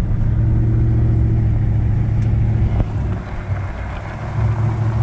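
Vehicle driving on a gravel road, heard from inside the cab: a steady low rumble of engine and tyres that dips for about a second a little past halfway.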